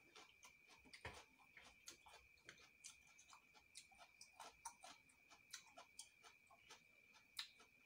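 Faint, irregular mouth clicks and crunches of someone chewing raw lettuce, several a second, over a steady faint high-pitched whine.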